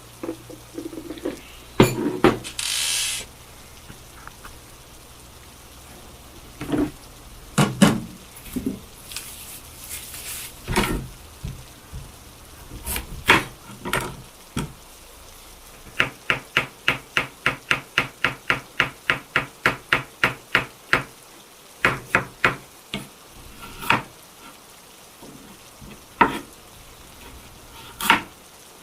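Kitchen prep sounds: scattered knocks and clatter of utensils and dishes, with a run of quick, even strokes at about six a second lasting some five seconds midway through.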